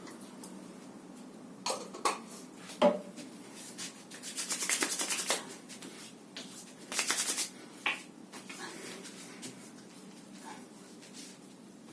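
Rubbing and handling noises: a few sharp knocks, then two bursts of rapid rubbing strokes, the first about a second long and the second about half a second, followed by scattered faint clicks.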